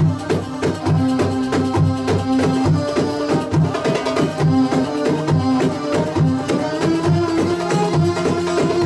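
Live Egyptian orchestra music for a bellydance entrance: hand drums keep a steady rhythm of deep and sharp strokes under a held melody line that steps up in pitch about seven seconds in.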